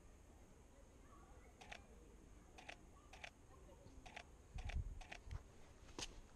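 Canon 5D Mark IV DSLR shutter firing in live view: about seven quiet single clicks at irregular intervals, half a second to a second apart. Near the end there are a couple of low thumps from handling the camera.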